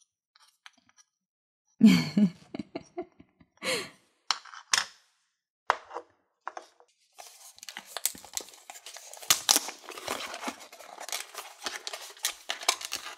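Small plastic toy pieces clicking and tapping as they are handled and set down. From about seven seconds in comes a dense run of crackling rustles as a cardboard blind box is handled and opened.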